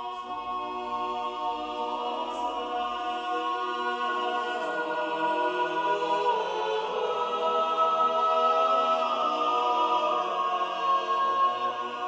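Unaccompanied choir singing Renaissance sacred polyphony, several voice parts holding long, overlapping notes that swell gradually in loudness.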